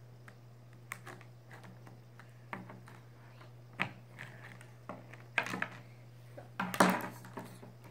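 Plastic toy train track pieces clicking and knocking as they are handled and fitted together: a few scattered clicks, then a louder clatter near the end, over a steady low hum.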